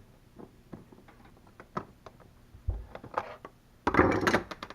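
Screwdriver turning the screw out of an outlet cover plate: scattered faint clicks and scrapes of metal on metal, then a louder scraping rattle of handling about four seconds in.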